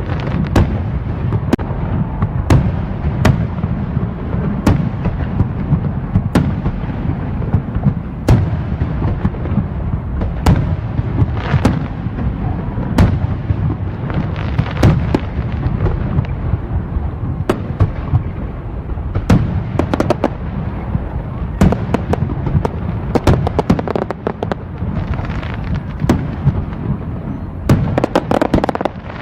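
Fireworks going off continuously: many sharp bangs at irregular intervals over a steady low rumble, with a dense run of rapid crackling near the end.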